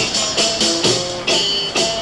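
Live band music: a run of sharp struck beats with a bright, jingling high shimmer, over short pitched notes in the middle range.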